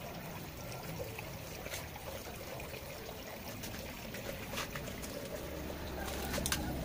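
Water trickling steadily through a hydroponic growing system, with a few light clicks and rustles as kangkung (water spinach) plants are lifted from their pots. A low hum comes in near the end.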